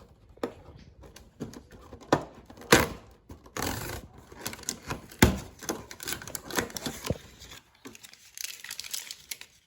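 Hands handling a plastic toy playset and its packaging: irregular clicks and knocks, two of them sharper, with a short rustle of packaging about a third of the way in.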